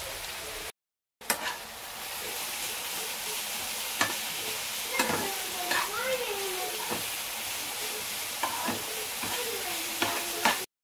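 Food sizzling in a hot pan while a spoon stirs it, scraping and clicking against the metal, with a few short squeaky scrapes. The sound cuts out briefly about a second in.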